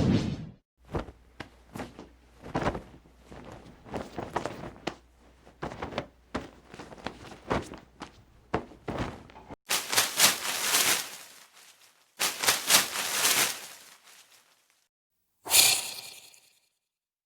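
A run of sound effects: a string of short knocks and thuds for about the first nine seconds, then two longer noisy rushes of a second or two each, and a short burst near the end.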